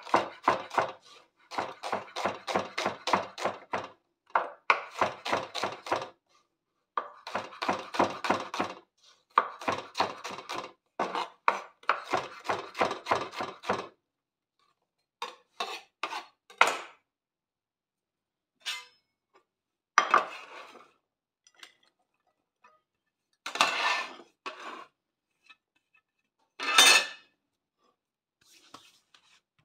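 Chef's knife chopping shallots on a wooden cutting board: quick rhythmic strokes in runs of one to three seconds with short pauses, for about the first half. After that come scattered knocks and scrapes of the knife and a plate as the chopped shallot is moved onto the plate, with the loudest clatter near the end.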